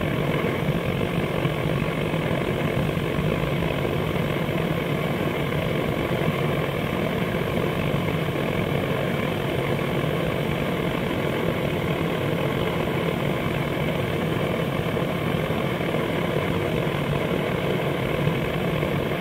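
Steady, unbroken roaring hiss, as of a gas burner heating a homemade oxalic-acid vaporizer set in the hive entrance while it sublimates the acid into vapour.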